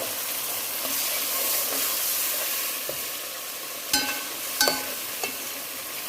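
Onion, sweet pepper, celery, tomato paste and sweet corn sizzling in a pot with a steady hiss as they fry, being stirred. A utensil clinks against the pot with a short ringing note about four seconds in, again just after, and once more faintly.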